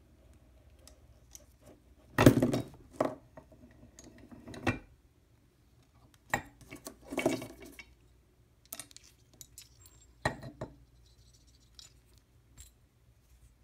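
Steel disc cutter block and punches clanking and scraping on the base of an arbor press as they are worked and shifted: a string of sharp metal knocks and clinks, the loudest about two seconds in, with a few lighter ones after.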